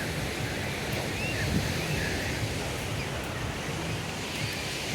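Sea surf: waves breaking and washing ashore in a steady rush.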